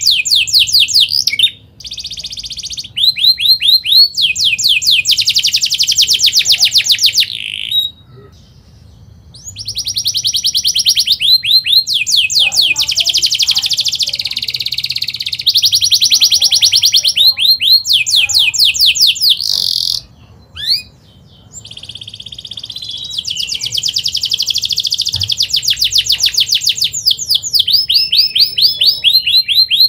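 Canary singing in long, fast, tightly packed rolling trills of high chirping notes, broken by short pauses about 2, 8 and 20 seconds in.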